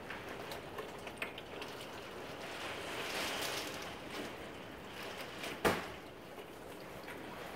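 Typhoon wind and driving rain: a steady rushing that swells in a gust partway through, with a few faint ticks and one sharp knock about three-quarters of the way in.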